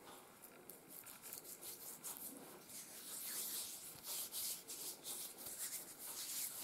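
Faint soft rubbing and swishing of fingers in homemade beeswax-and-propolis ointment, scooped from a small glass jar and worked onto the skin, a little louder from about halfway through.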